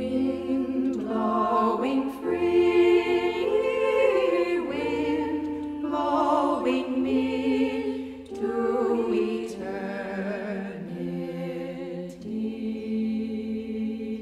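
Several voices singing together in a slow passage of long held notes.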